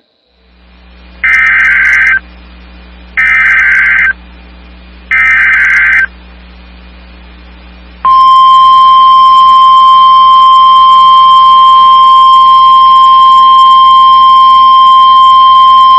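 Emergency Alert System SAME header: three one-second bursts of warbling digital data tones, about two seconds apart. About eight seconds in, NOAA Weather Radio's single-pitch 1050 Hz attention tone comes on and holds steady, signalling that a weather alert is about to be read. A faint low hum lies underneath.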